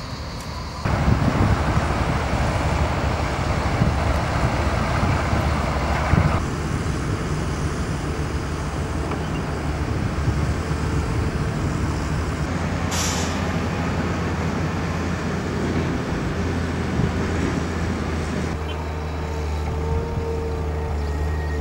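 Heavy diesel vehicle engine running steadily, with a brief hiss about 13 seconds in.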